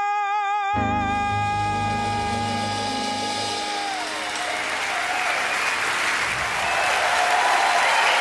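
A woman singer holds a long final note with vibrato over the band's closing chord, which ends about four seconds in; the audience then applauds, getting a little louder near the end.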